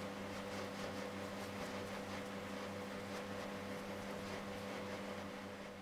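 Steady low hum with hiss: room tone from a running appliance such as a fan, fading a little near the end.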